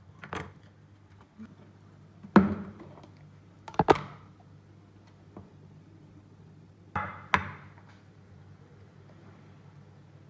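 About half a dozen sharp knocks and thuds of a kitchen knife against a wooden chopping board and of fruit pieces and a plastic tub being handled, the loudest a couple of seconds in, over a steady low hum.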